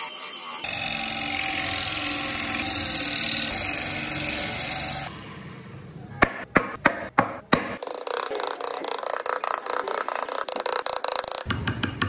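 Wood lathe running while a turning tool scrapes a spinning wooden wheel, giving a steady motor hum with the rasp of the cut. About five seconds in this drops away, followed by a few sharp knocks and then a fast run of clicks. Near the end, rapid clicking from a hand chisel cutting tread notches into the wood.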